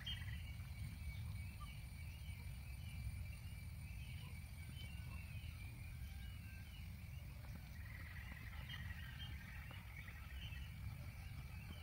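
Outdoor ambience: scattered faint bird chirps and a steady high whine over a low rumble.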